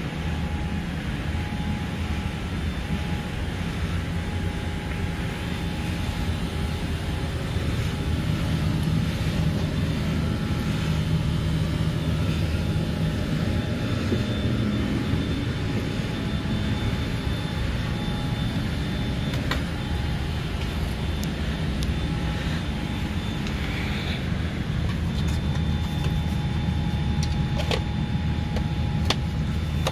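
Steady low rumble and hiss of a Boeing 787-8 Dreamliner's passenger cabin, with a few sharp clicks near the end as a seatback tray table is handled and folded.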